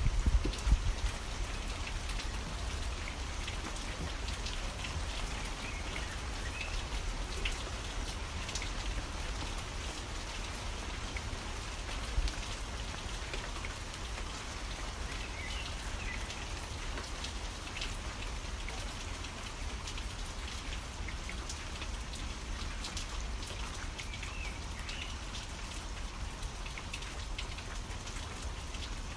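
Steady rain falling, with dense patter of drops and the occasional faint short bird chirp. A couple of low thuds stand out, about a second in and again about twelve seconds in.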